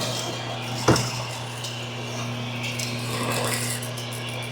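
Drill press running with a 1.5-inch bit boring out the remaining plastic of a bowling ball's thumb-hole plug: a steady motor hum with scraping and clinking, and a sharp knock about a second in.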